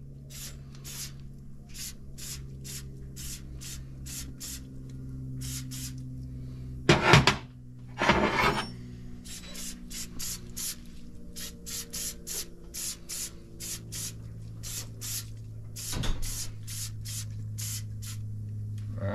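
Aerosol can of dye penetrant hissing in two short sprays about seven and eight seconds in, and once more briefly near the end, as it coats a steel steering spindle for crack checking. Underneath runs an even ticking of about three clicks a second over a low held hum.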